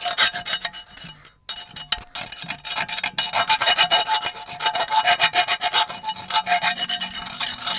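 Hand file scraping back and forth inside the metal bushing bore of a Jeep upper control arm mount, knocking down the burrs left from cutting out the old bushing so the new one goes in flat. The strokes are quick and repeated, with a short pause about a second and a half in.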